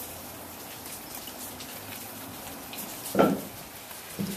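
Rain falling and dripping steadily, with a short dull knock about three seconds in and a fainter one near the end.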